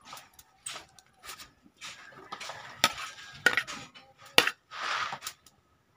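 A metal ladle scraping and knocking against a basin and a large wok as sliced fishballs and kikiam are scooped onto noodles. There are several sharp knocks, the loudest about four and a half seconds in, between short scraping sounds.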